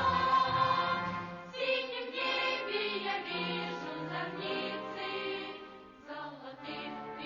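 Music with a choir singing; the sound drops away briefly about six seconds in, then picks up again.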